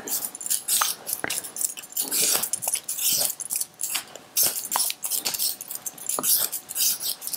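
Metal swivel peeler scraping the skin off a raw potato in repeated short strokes, with small clicks between them.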